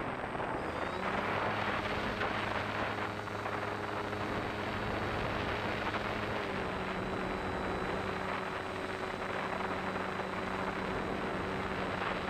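Brushless outrunner electric motor (900 kV, on a 3S battery) spinning the propeller of a homemade RC airplane, a steady hum picked up by the onboard camera, with wind rushing over the microphone.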